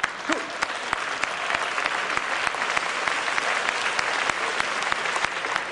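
Audience applauding, a dense run of clapping that starts abruptly and thins out near the end.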